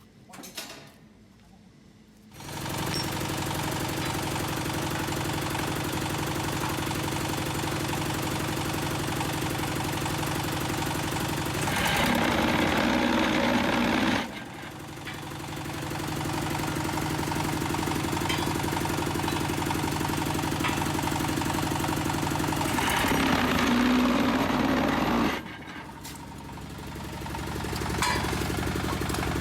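Diesel engine of a QT4-30 hydraulic block-making machine starting about two seconds in and then running steadily. Twice it rises into a louder, harsher spell of about two seconds that cuts off sharply, the second near the end.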